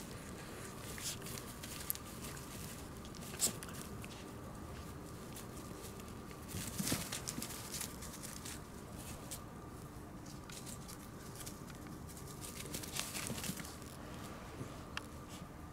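Shiba Inu mother and her black Shiba puppy scuffling on dry grass and fallen leaves: paws padding and rustling in scattered bouts, busiest about seven seconds in.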